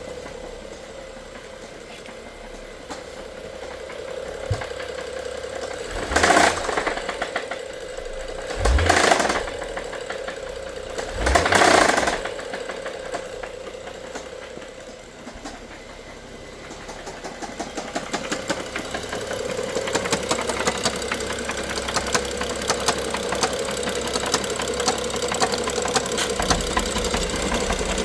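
BMW N55 turbocharged straight-six running with a rapid knocking. There are three short louder bursts about 6, 9 and 12 seconds in, and the engine grows gradually louder from about 17 seconds.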